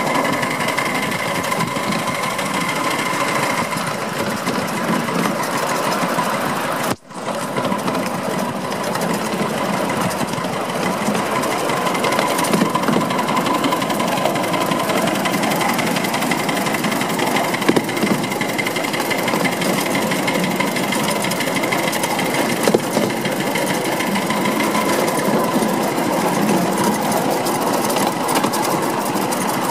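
Miniature 5-inch-gauge live-steam Krauss locomotive running along the track, a steady rapid chatter of exhaust beats and wheels on the rails. The sound cuts out for a split second about seven seconds in.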